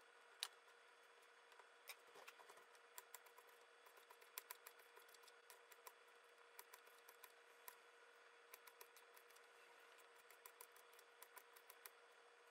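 Faint, irregular clicks of a kitchen knife slicing crisp green bell pepper into strips, several a second at times, over a steady faint hum.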